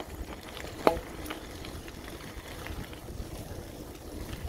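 Bicycle tyres rolling over a gravel trail with a steady crunching hiss and wind rumble on the microphone. A single sharp click about a second in.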